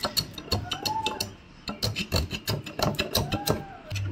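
Irregular knocks and clicks of freshly cut plywood being handled and worked at a carpenter's bench. Two faint, short rising-and-falling tones come in about a second in and again near the end.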